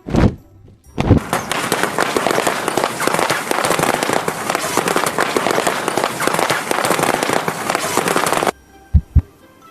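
A string of firecrackers going off in a dense, rapid crackle of sharp pops for about seven seconds, then stopping abruptly. It is preceded by a low bang at the start and another about a second in. Near the end come two low thumps in quick succession, like a heartbeat.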